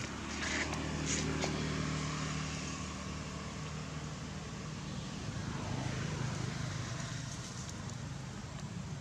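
Low, steady engine hum, as of a motor vehicle running, with a few light clicks about a second in.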